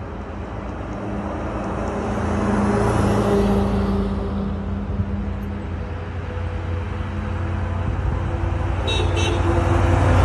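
Heavy vehicles of a fire-engine convoy driving past on a highway: engine hum and tyre noise swell as one passes about three seconds in and build again near the end as a truck goes by close. Two short high-pitched toots sound about nine seconds in.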